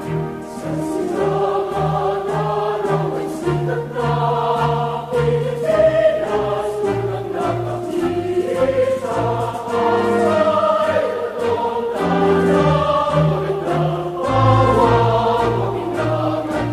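Choral music: a choir singing a melody over held low accompanying notes.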